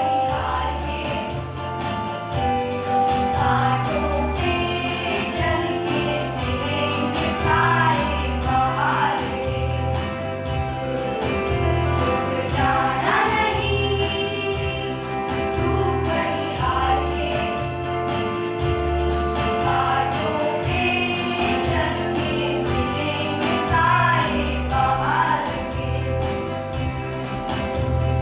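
A group of voices singing a song together over instrumental accompaniment with a steady beat.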